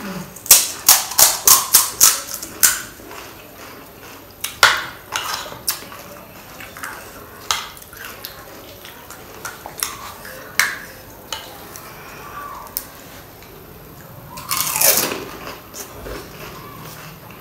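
Close-up eating sounds of panipuri. First comes a quick run of crisp crunches as a mouthful is chewed, then scattered clicks and scrapes as a spoon scoops chatpata mix into a hollow, crisp puri shell. About fifteen seconds in there is a louder crunch as the filled puri is bitten.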